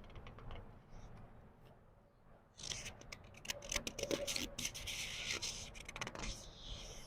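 A paper book page being turned slowly: a few faint paper ticks at first, then a papery rustle with crackles for about four seconds from the middle, dying away near the end.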